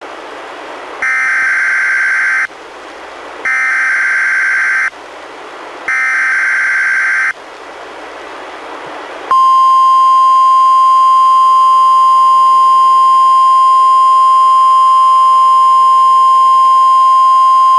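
NOAA Weather Radio Required Weekly Test coming through a Reecom R-1630 weather radio. First come three loud, buzzy bursts of SAME header data, each about a second and a half long, with radio hiss between them. About two seconds after the third burst, the steady 1050 Hz warning alarm tone comes on and holds.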